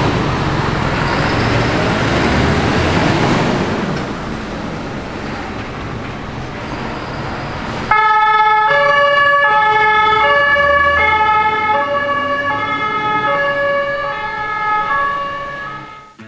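Loud engine and road noise from passing emergency traffic. About halfway through it stops abruptly and a clean two-tone German emergency siren (Martinshorn) takes over, alternating steadily between a lower and a higher pitch.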